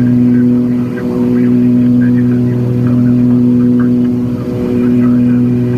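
The twin turbocharged six-cylinder piston engines and propellers of a Cessna 340, heard from inside the cabin at climb power after takeoff: a steady, loud drone with a slow rise and fall in loudness.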